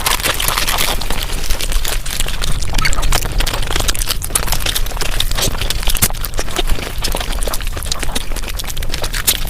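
Mukbang eating sounds sped up five times: a dense, fast, unbroken stream of crunching, chewing and crackling clicks.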